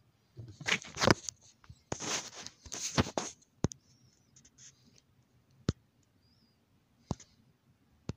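Handling noise of a phone being moved around in the hand: rubbing and rustling with knocks for about three seconds, then four single sharp clicks spaced a second or more apart.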